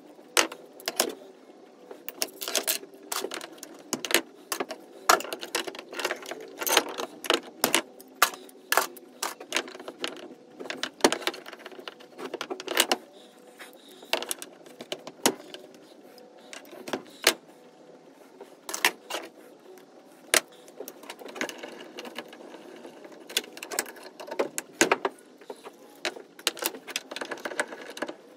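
Irregular metallic clicks and clanks of hand tools (screwdriver, pliers) working on a brass thermostatic expansion valve as it is taken apart, with tools and metal parts knocking on a wooden workbench.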